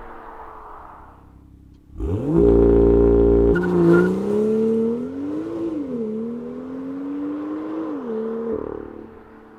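BMW M2's N55 turbocharged straight-six held at steady high revs for about a second, then launching and accelerating hard. The engine note climbs and drops sharply twice at the upshifts, then fades as the car pulls away.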